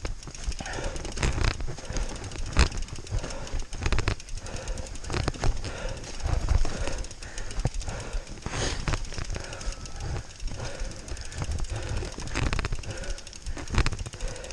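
Mountain bike riding down a wet, rocky trail: tyres rolling over stones and leaves, with frequent irregular knocks and rattles as the bike jolts over bumps.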